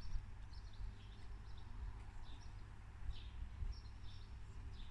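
Small birds chirping faintly in short, repeated high chirps, over a low steady rumble of wind or distant noise.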